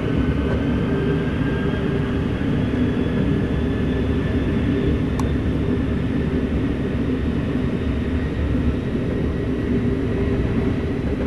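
Boeing 747 jet engines running at high thrust: a steady, deep roar with a faint turbine whine that rises slowly in pitch.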